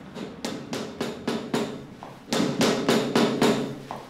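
Repeated hammer blows, evenly spaced at about four a second. A low steady hum comes in under them about halfway through.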